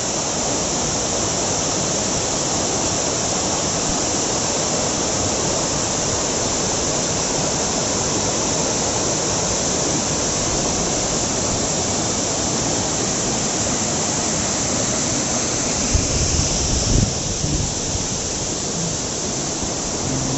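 Waterfall rushing with a steady, loud roar of falling water. A few low bumps come about three-quarters of the way through.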